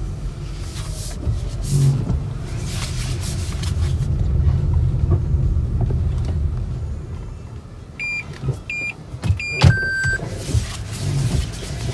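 Low steady rumble, then three short high electronic beeps followed by one longer, lower beep, with a few knocks.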